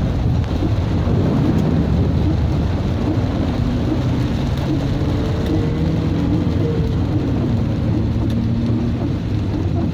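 Heavy rain beating on a Chevrolet Celta's body and windscreen while its tyres run through standing water, with the engine running underneath, heard from inside the cabin. It is a steady, loud rumble with the rain's hiss on top.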